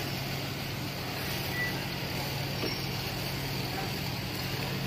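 Steady supermarket background noise at a checkout counter: a constant low hum under a general hiss and murmur, with a short faint beep about a second and a half in.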